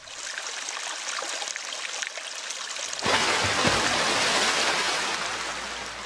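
Rushing-water sound effect accompanying an animated water-splash graphic: a steady watery hiss that swells about three seconds in, with a low falling whoosh, then fades.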